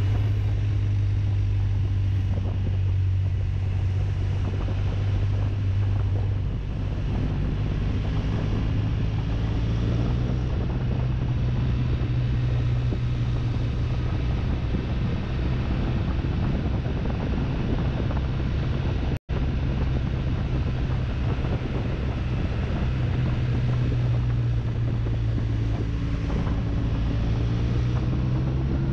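BMW RT touring motorcycle's boxer-twin engine running steadily on the move, with wind rushing over the microphone. The engine note shifts slightly a few times, and the sound cuts out for an instant about two-thirds of the way through.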